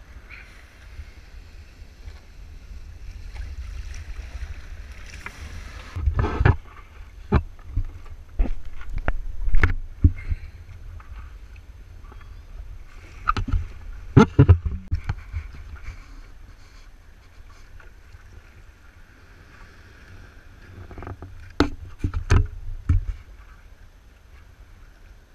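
Stand-up paddleboard paddle strokes: the blade dips and splashes through the water in three clusters of sharp splashes, with calmer stretches between, over a steady low rumble.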